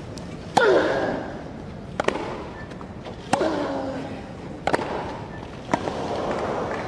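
Tennis rally on a grass court: five sharp racket-on-ball strikes, about one every second and a quarter. Two of the strikes come with a player's grunt that falls in pitch. Crowd noise swells near the end.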